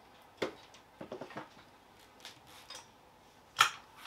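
A few light, sharp metallic clicks and taps from a hydraulic floor jack as its long handle is worked to let the axle down. One click about half a second in, a quick cluster around a second, then a sharper click near the end.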